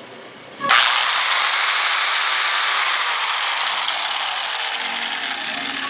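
Electric grinder switched on under a second in, then running steadily with a loud, hissy whir.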